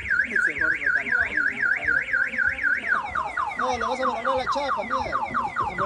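Car alarm sounding: a fast warbling tone, about four warbles a second, that switches about halfway through to rapid falling chirps, about five a second. It is set off by tampering at the car door.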